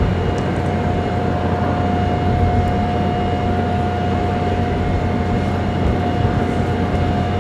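Distant, steady drone of the North American B-25 Mitchell's two radial piston engines, with a constant hum running through it.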